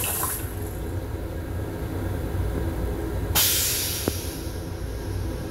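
Toilet of a Long Island Rail Road M7 railcar flushing: a sudden hiss of rinse water into the bowl about three and a half seconds in, fading over the next couple of seconds, with a short click just after. A steady low rumble of the train runs underneath.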